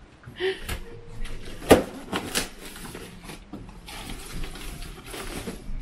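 Cardboard box being opened and handled: rustling and scraping of cardboard and packing, with a sharp knock about two seconds in.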